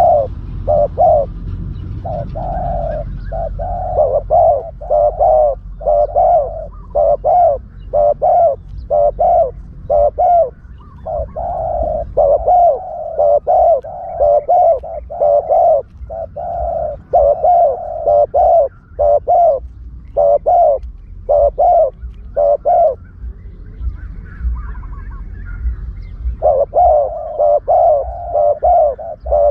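Spotted dove cooing: a long run of short, quickly repeated coos, breaking off about 23 seconds in and starting again about three seconds later, over a low steady rumble. It is a lure call for trapping spotted doves.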